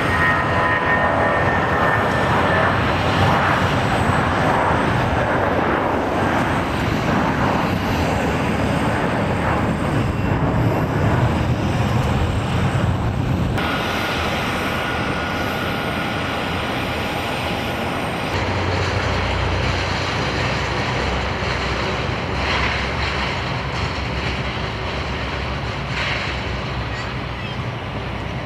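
Airbus A320 jet engines at takeoff thrust as the airliner lifts off, a loud steady noise with a high whine. After a sudden change about halfway through, a Dash 8-400 turboprop's engines drone steadily with a single tone as it taxis, and in the last third a lower engine rumble takes over.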